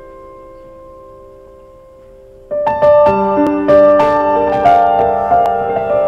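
Background piano music. A held chord fades away, then about halfway through new notes are struck one after another and ring on.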